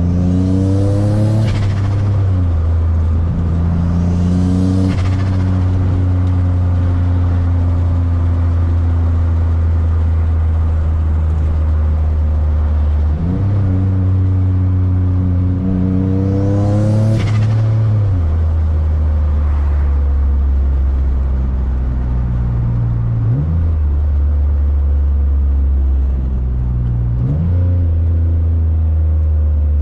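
Single-turbo Infiniti G35's 3.5-litre V6 under hard acceleration, revving up through several pulls, each ending in a sudden drop in pitch at a gear change; the longest pull comes about halfway through. A short hiss rises at the top of three of the pulls.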